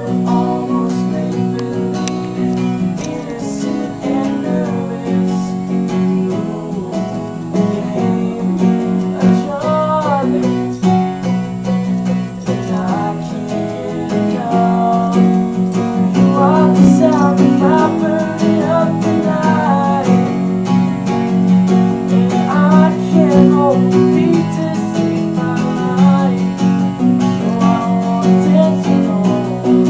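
Live band performance: a guitar strummed in steady chords, with a voice singing over it from about nine seconds in.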